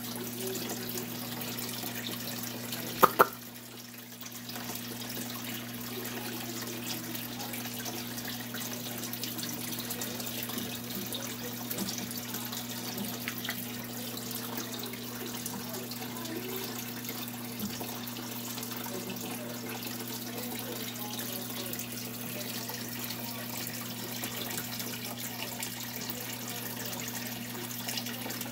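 Aquarium filter running: a steady splash of flowing water over a low electrical hum. Two sharp knocks come close together about three seconds in.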